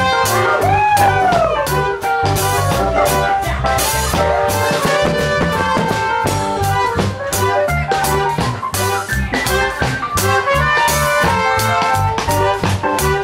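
A live band playing an instrumental passage of a song, a drum kit keeping a steady beat under held melodic notes, with a brief swooping note about a second in.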